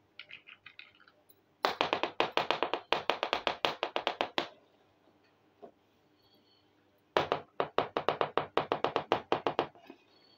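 Rapid runs of sharp taps, about ten a second, from miniature toy pots and plates handled on a hard tabletop. A short faint run comes near the start, then two loud runs of about three seconds each, with a pause between them.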